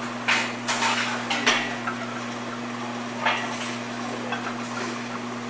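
Metal gym weights clanking and clinking: a quick run of knocks in the first second and a half, then another clank about three seconds in, over a steady low hum.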